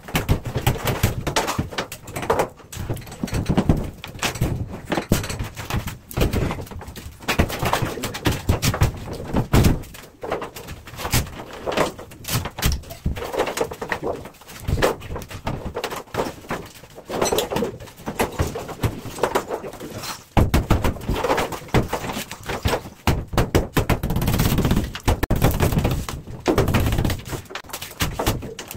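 Interior demolition work: irregular bangs, knocks and scraping as fittings and debris are broken up and moved.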